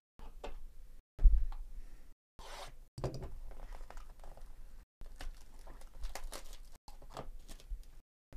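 Plastic shrink wrap being torn and peeled off a sealed baseball-card hobby box: a run of short, irregular ripping and crinkling rasps, with a low thump about a second in.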